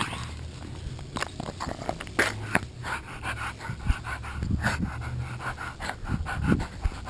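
Boston Terrier panting hard in quick, rhythmic breaths while gripping a rope toy in a tug-of-war, with scattered knocks.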